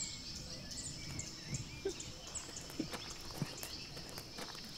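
Quiet outdoor ambience: faint bird chirps over a steady high insect drone, with a few soft footfalls on a dirt path.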